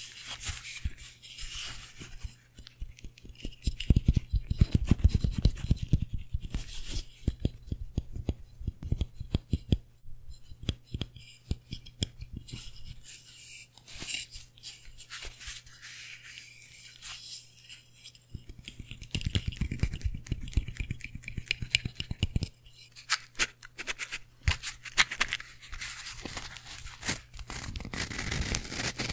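Close-miked ASMR handling sounds from gloved hands: quick taps and scratches on a wax pillar candle and its wooden stand, then rubbing right at the microphone, and a box of matches handled near the end. Two louder spells of dense scratching and rubbing stand out, over a steady low hum.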